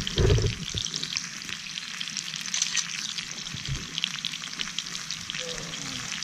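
Meat sizzling in a frying pan: a steady crackling hiss, with a brief low thud just after the start.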